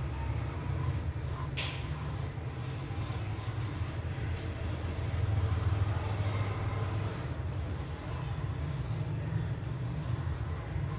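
Pencil rubbing and scratching across drawing paper in short strokes over a steady low hum, with a couple of sharp ticks early on.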